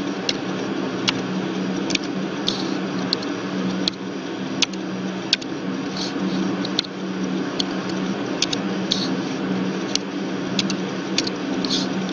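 Sparse, irregular clicks of a computer keyboard and mouse while text is typed and edited, over a steady low hum.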